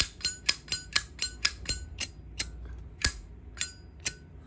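Polished chrome Zippo lighter's hinged lid being flipped open and snapped shut over and over: a quick run of sharp metallic clicks with a short ring, about four a second, then slowing to a few spaced clicks.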